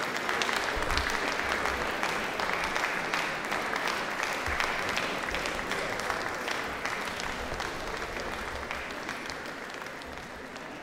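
Applause: many hands clapping, slowly fading away.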